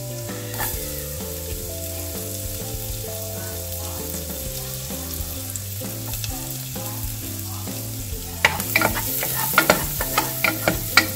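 Garlic and ginger sizzling in melted butter in a saucepan. From about eight and a half seconds in, a wooden spoon stirs the pan with a string of sharp knocks and scrapes, and the sizzle gets louder.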